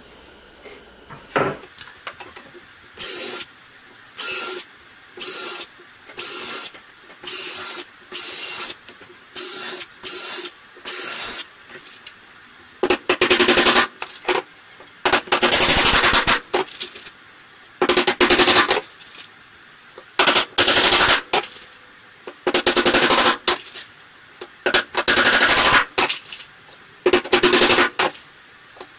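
Cordless power drill run in short bursts, about one a second, then in longer bursts of a second or two with a fast rattle, as the pallet slats are fastened.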